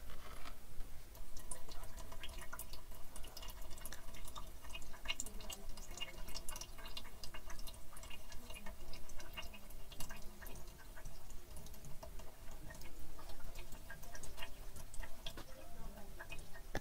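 Fluid dripping from an African land snail held over a measuring jug: a scatter of small, irregular drips over a faint steady hum.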